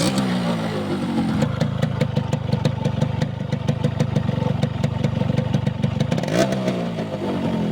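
Yamaha RX 115's two-stroke single-cylinder engine settling from a rev down to a steady idle, then blipped once near the end and dropping back.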